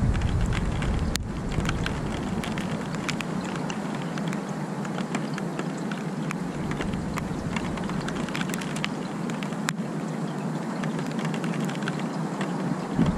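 Steady rain falling, a continuous hiss dotted with sharp ticks of drops hitting close surfaces. A low rumble sits under it at the start and again near the end.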